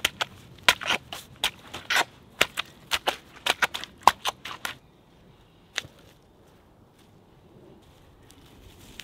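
Wooden pole pounding a wet daub mix of soil, clay and straw, with quick sharp strikes at about three a second. The strikes stop about five seconds in, and one more follows about a second later.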